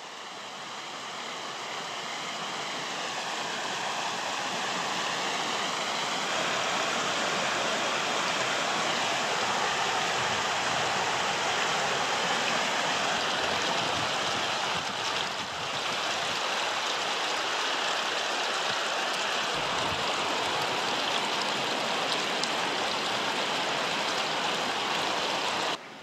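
Steady rush of a mountain stream running over a stony riverbed, fading in over the first few seconds and cutting off abruptly at the end.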